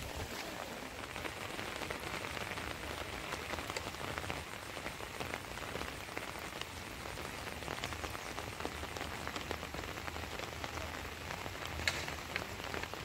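Steady rain falling: a dense, even hiss of many small drop ticks, with one sharper tap near the end.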